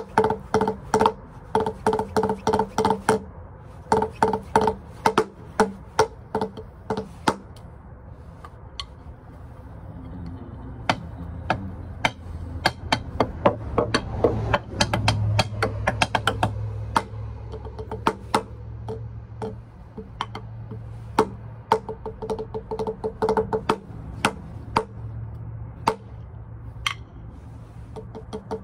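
Wooden drumsticks clicking against each other and tapping a drum practice pad in fast freestyle rolls and accented rhythmic runs. A low hum swells and fades through the middle.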